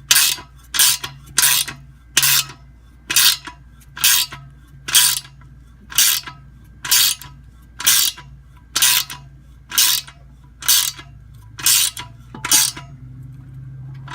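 Hand ratchet being worked on a nut, a short burst of pawl clicks on each back-swing about once a second, with a steady low hum underneath. The nut is being cranked down to pull a press-fit bolt up into the Ford 9-inch center section. The clicking stops near the end as the nut comes tight, with one last click right at the end.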